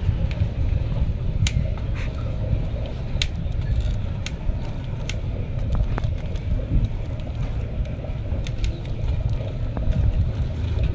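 Scattered light clicks and scrapes of wire being bent and wrapped by hand around a bonsai trunk and branch, over a steady low rumble.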